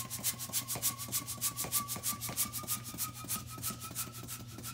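Hand balloon pump inflating a long twisting balloon: rapid, even strokes of air swishing through the pump, with a faint whistle rising slightly in pitch as the balloon fills.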